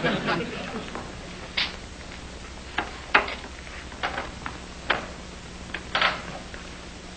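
Irregular short knocks and clicks, about one a second, from someone handling tools or wood in a workshop, over a steady low hum.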